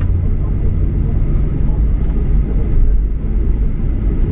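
Cabin noise of a Boeing 737-800 airliner rolling out along the runway just after touchdown, spoilers deployed: a loud, steady low rumble.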